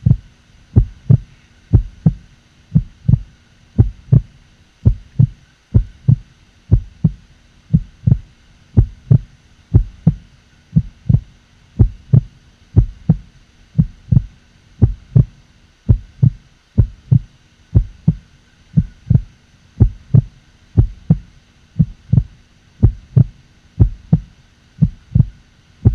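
Regular low thumps, about two a second in close pairs like a heartbeat, over a faint steady hum.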